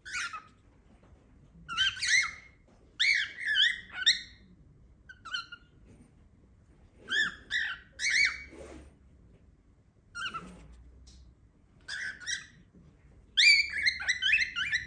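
Pet cockatiel calling: clusters of short, pitched chirps, each a quick up-and-down note, coming every second or two and ending in a fast run of loud chirps. The owner wonders whether the calls are an attempt at a word.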